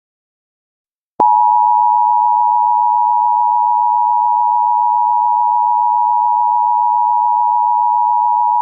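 Emergency Alert System attention signal: a loud, steady two-tone alarm (853 and 960 Hz) starting about a second in after a short silence, announcing a Civil Emergency Message.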